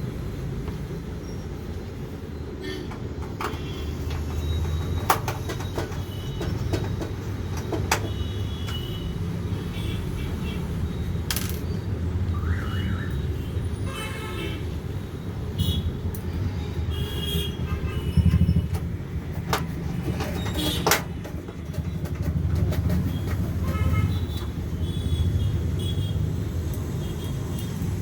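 Scattered sharp clicks and metallic ticks of a screwdriver and small screws as a motherboard is screwed into a PC case's standoffs, over a steady low background rumble.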